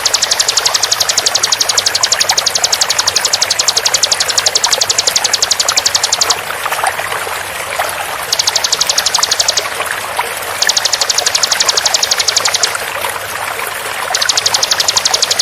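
Bar-winged prinia (ciblek) giving its rapid-fire 'tembakan' call: fast, evenly repeated high notes in bursts, a long one of about six seconds, then three shorter ones. Under it, the steady rush of running water.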